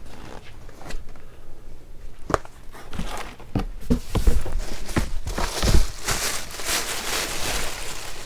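Items and packaging being handled during an unboxing: a series of knocks and taps, then plastic packaging crinkling near the end.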